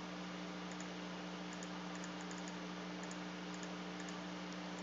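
A few faint, light computer mouse clicks as numbers are entered on an on-screen calculator, over a steady low hum and hiss.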